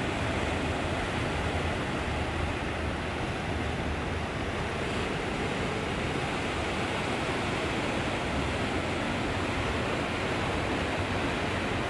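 Ocean surf breaking and washing over shoreline rocks, a steady rushing noise.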